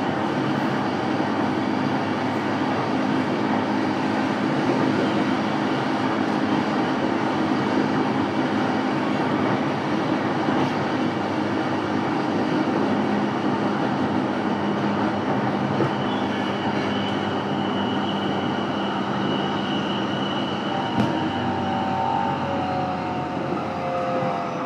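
Interior running sound of a JR East E233-series electric train's motor car: a steady rumble of wheels on rail and traction motors at speed. In the last few seconds a whine from the inverter and motors slides down in pitch, as it does when the train begins to brake.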